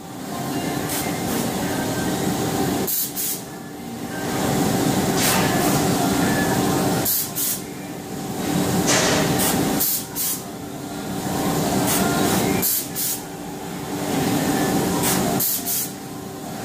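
Foltex AT230 BH towel and garment folder running while folding scrub suits: a steady mechanical drone carrying a few steady tones. It dips briefly every few seconds and is broken by short, sharp hissing bursts.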